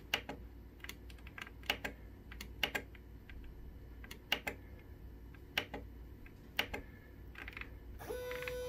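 Sharp clicks at irregular intervals from the rotary knob and push button of a 3D-printer LCD controller as its menus are scrolled. Near the end a large stepper motor starts running with a steady pitched whine.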